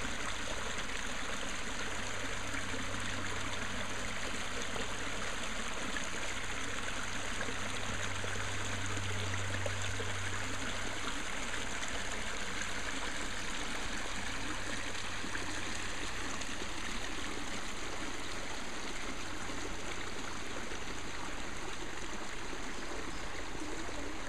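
Shallow creek water running over rocks and small riffles: a steady, even rush of flowing water.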